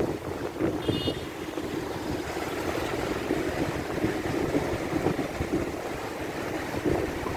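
Wind rushing over the microphone of a moving bicycle rider, mixed with road traffic on the avenue alongside, a city bus among it. A brief thin high squeak about a second in.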